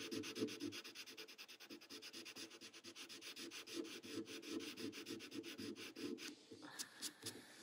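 White charcoal pencil rubbing over a paper tile in quick, even short strokes, a faint scratching that stops about six seconds in. A few faint clicks follow.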